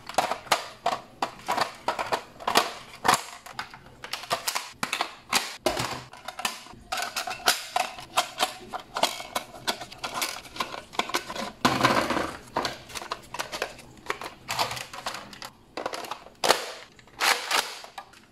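Plastic clicks and snaps, a few each second, as foam darts are pushed one by one into a Nerf Retaliator Elite's 12-dart clip magazine.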